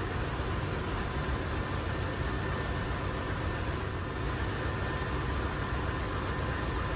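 Steady machinery drone of a ship's engine room: a deep, continuous rumble with a faint steady whine above it.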